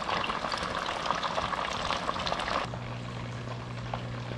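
Battered fish frying in hot oil: a steady sizzle full of small crackles. About two-thirds of the way through it cuts off, and a low steady hum remains.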